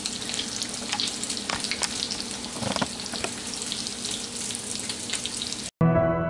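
Oil sizzling and crackling around a panko-breaded pork cutlet shallow-frying in a skillet, a steady hiss with many small pops. It cuts off suddenly near the end and soft background music begins.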